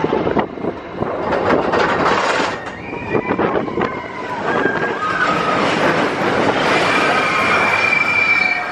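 Roller coaster train rattling and clattering along its track, heard from onboard. Steady high-pitched squeals come in over the rattle, mostly in the second half.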